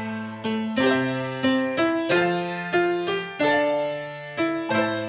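Background music: electric piano playing a simple melody of sustained chords, with a new note or chord struck every half second or so.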